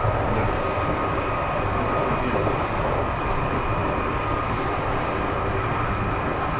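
Berlin U-Bahn train running at speed, heard from inside the car: a steady rumble of wheels and running gear with a thin, steady high whine.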